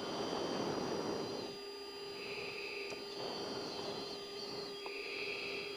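F-16 cockpit intercom audio: a steady electrical hum with a fainter high whine, and slow rhythmic breathing into the oxygen-mask microphone, a swell of hiss about every three seconds.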